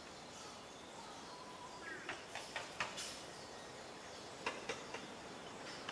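Paper sheets being handled, giving a few short, crisp crackles in two clusters, about two seconds in and again about four and a half seconds in, over a faint steady outdoor background.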